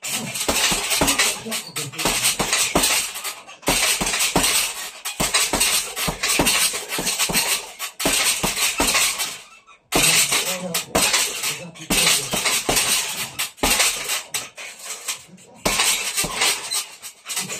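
Rapid gloved punches landing on a hanging heavy bag, with the bag's chain and steel stand clinking and rattling at each hit. The punches come in runs of a few seconds with brief pauses between them.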